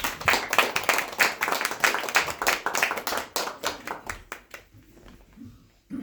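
Audience applauding: dense clapping that thins out after about four seconds and stops about five seconds in.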